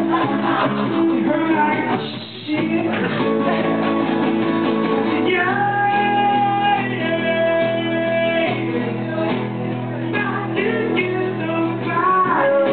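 A man singing live while strumming an acoustic guitar, holding long notes in the middle, with a brief break about two seconds in.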